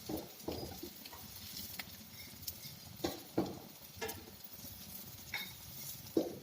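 Light kitchen clatter: a scattering of small clicks and knocks, like utensils tapping dishes and a pan, about eight over several seconds with quiet between them.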